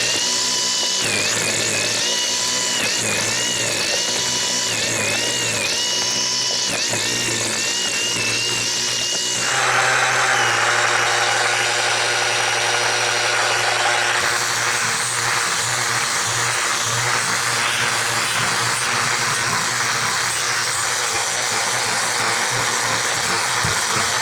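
Cordless angle grinder with a sanding disc running against a wooden tabletop. Its motor whine keeps dipping in pitch as it bears down. About nine seconds in, the sound turns rougher and steady.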